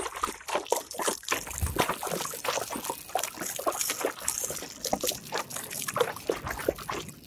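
Water pouring from a large plastic water can and splashing onto dry packed dirt in uneven gushes.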